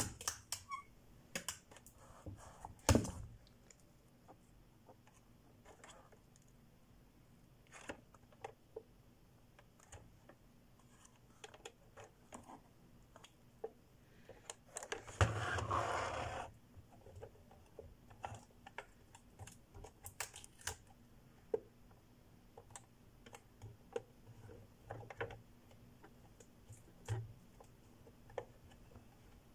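Quiet, scattered clicks and taps of hands handling sticky tape, a paper note and a plastic toy car, with a sharper click about three seconds in. About halfway through comes a rasp lasting about a second, tape being pulled and torn.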